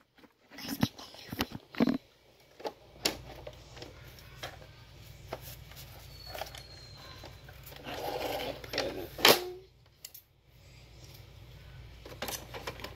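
Toys and a paper gift bag being handled up close: scattered taps, clicks and rustles, with one sharper knock about nine seconds in, over a faint steady low hum.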